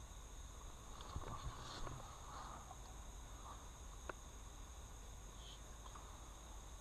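Steady high-pitched chorus of insects in woodland, with a few faint knocks and rustles of handled gear and one sharp click about four seconds in.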